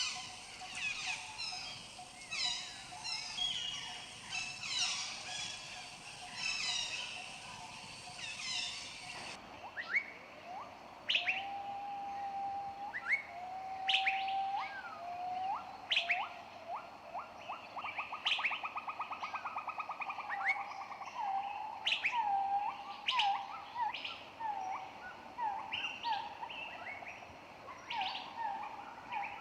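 Tropical birds chirping and calling: a dense chorus of quick high chirps, which cuts abruptly about nine seconds in to a different recording of lower whistled notes, sharp rising calls and a brief buzzy trill.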